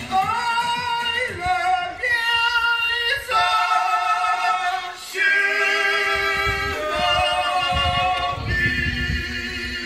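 Dance music for a Gypsy-style (Roma) dance played over a loudspeaker: female voices singing long held notes with a wavering vibrato, the melody stepping to a new note every second or two, with a low rumbling accompaniment coming in over the last few seconds.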